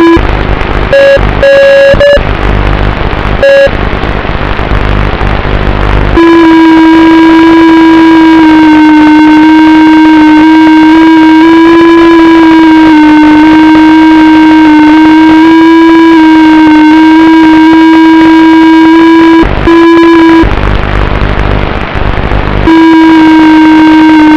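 Electric motor and propeller of an FPV model aircraft running with a steady drone, its pitch wavering slightly with throttle. For the first few seconds, and again briefly near the end, the motor drops out and loud rumbling wind noise on the onboard microphone takes over.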